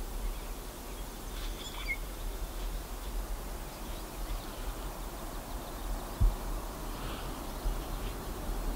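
Quiet outdoor morning ambience: a steady low background rumble and hiss with a few faint bird chirps, the clearest about one and a half seconds in. A single low thump a little after six seconds is the loudest sound.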